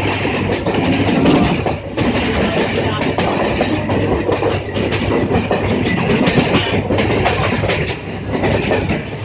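Running noise of a local passenger train heard from on board, with a steady rumble and the wheels clattering over rail joints and points in irregular clicks.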